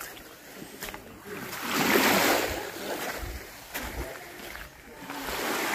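Seawater washing and splashing, rising and falling once about two seconds in, with a few light clicks around it.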